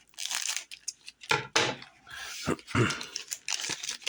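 Paper trading cards being handled: a run of light taps, flicks and rustles as cards are pulled from a booster pack and slid against one another.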